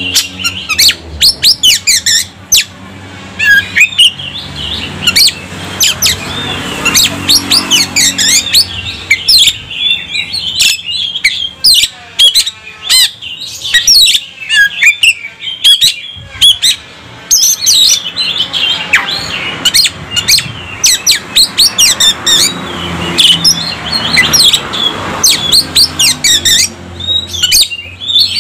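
Oriental magpie-robin singing a loud, fast, varied song of sharp whistles, chirps and harsh notes, its repertoire filled with calls mimicked from other birds.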